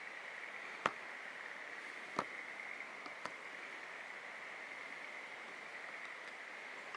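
Steady high hiss with a constant high-pitched band, broken by three sharp clicks about one, two and three seconds in.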